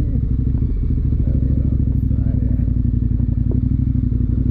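KTM motorcycle engine running steadily under way, with a fast pulsing beat to its sound.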